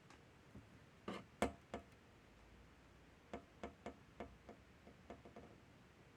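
Light clicks and taps of small objects handled on a workbench: a few sharper knocks about a second in, then a run of about eight quick ticks, roughly three a second.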